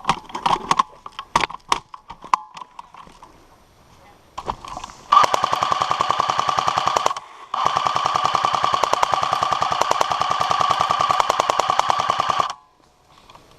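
M249 airsoft electric support gun firing on full auto: a burst of about two seconds, a brief pause, then a sustained burst of about five seconds, each a rapid even rattle over the whine of the gearbox motor, cutting off suddenly. A few sharp cracks of other shots come in the first two seconds.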